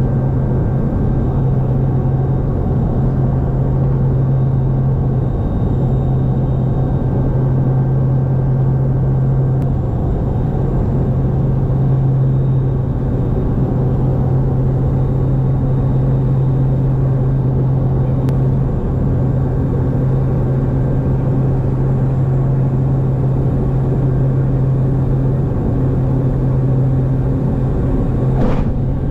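Cabin noise of a Dornier 228 in flight: the loud, steady drone of its twin Garrett TPE331 turboprop engines and propellers, with a strong low hum held at one pitch.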